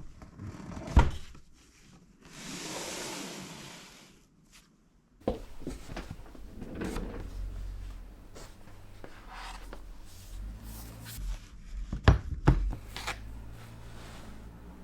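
Objects being handled: a sharp knock about a second in, a soft hiss lasting about two seconds, then a low steady hum from about five seconds in, with scattered knocks and two sharp ones close together near the end.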